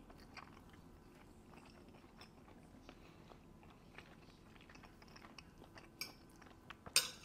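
Quiet chewing of a mouthful of curry chicken and rice, with small soft mouth clicks throughout and a sharper click near the end.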